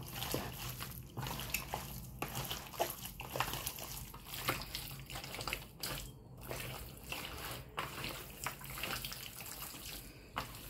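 Hands working chicken pieces through a wet yogurt-and-spice marinade, making an uneven wet squishing and sloshing as the meat is turned and rubbed.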